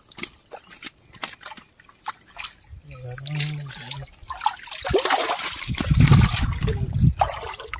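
Shallow water splashing and sloshing: scattered small splashes at first, then a louder stretch of churning splashes from about halfway through that dies down near the end.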